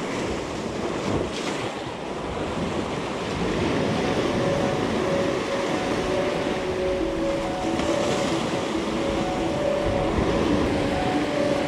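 Sea surf breaking and washing over shore rocks, with wind buffeting the microphone. From about four seconds in, faint music with held notes comes in under the surf.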